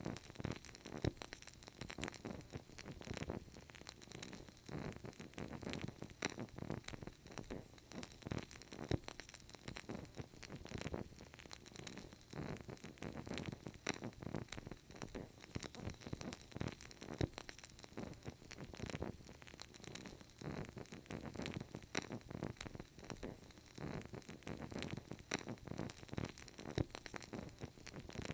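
Burning candle crackling steadily, with many small, irregular pops and sputters.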